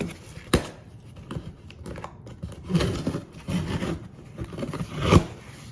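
Packaging handled by hand during an unboxing: rustling and scraping of box and wrapping, with sharp clicks, one about half a second in, and a louder knock about five seconds in.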